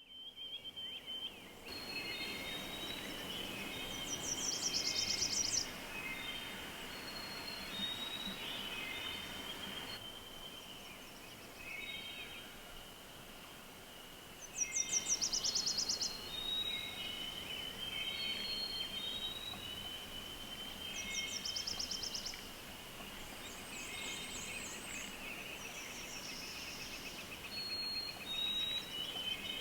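Many wild birds calling together in a spring chorus: a steady jumble of short chirps and whistles, with a high, fast trill that comes back every several seconds.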